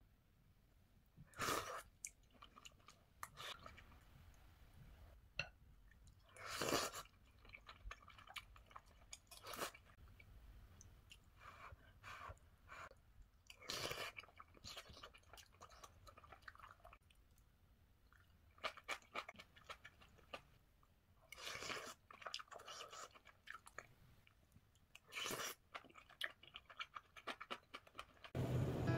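Close-up eating sounds: a person chewing mouthfuls of tteokguk (rice cake soup), with small clicks of a metal spoon against a ceramic bowl and about six louder short bursts spread through.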